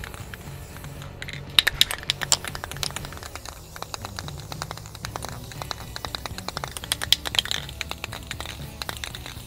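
Rattle of the mixing ball inside an aerosol can of Rust-Oleum spray enamel as the can is shaken: quick runs of sharp clicks, in two bursts about one and a half seconds in and again about seven seconds in.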